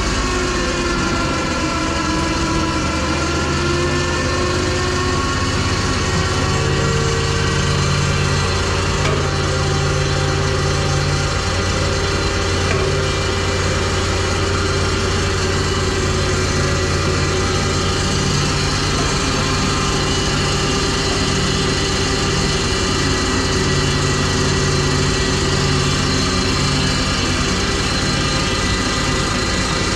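Engine running steadily, its pitch sagging slightly in the first few seconds and then holding even.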